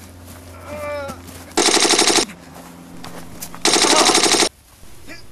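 Machine-gun fire in two short bursts, each under a second long and about two seconds apart, after a man's brief shout.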